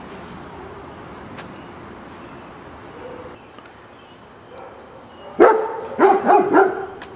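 Huskita puppy giving about four short barks in quick succession, starting about five seconds in, while playing with a frisbee.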